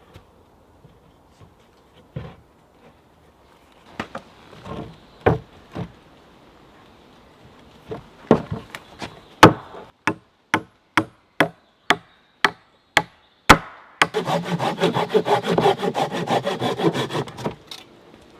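Woodworking on a timber frame: a run of sharp, evenly spaced hammer blows, about two a second, then sawing through wood with quick strokes for about four seconds near the end.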